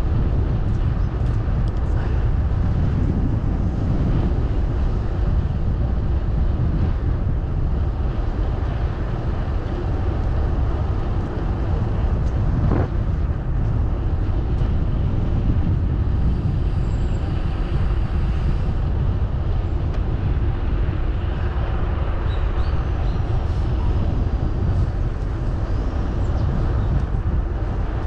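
Steady low rumble of wind and tyre noise while riding a bicycle along a paved path.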